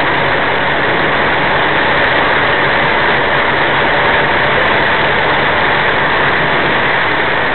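Truck engine running steadily, heard from inside the cab, under a constant hiss of tyres on the wet road.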